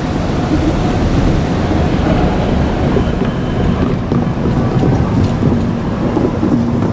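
JR Kyushu 817 series electric train running past at close range: a loud, steady rumble of wheels on rail.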